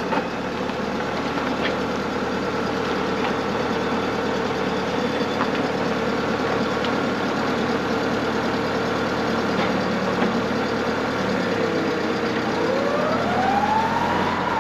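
Machine engine running at a steady speed, then revving up about two seconds before the end and dropping back.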